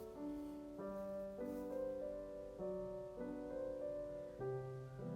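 Background piano music: soft chords changing about once a second.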